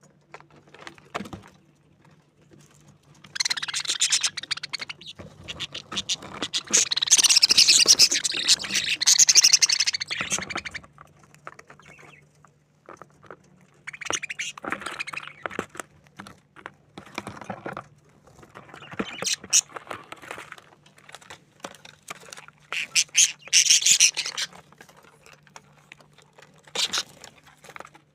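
Budgerigars chattering and chirping: a dense stretch of chatter lasting several seconds, then shorter bursts with pauses between.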